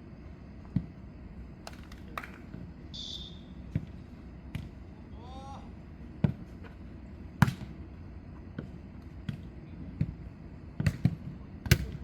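Jokgu ball being kicked and bouncing on the court during a rally: sharp single thumps a second or so apart, with a quick run of them near the end. A brief high whistle-like tone about three seconds in and a short call from a player around the middle.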